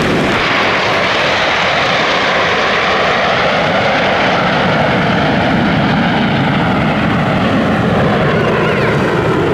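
Formation of Aermacchi MB-339 PAN jet trainers flying overhead, their single-turbojet engines making a loud, steady rushing noise whose high hiss gradually dulls as they pass.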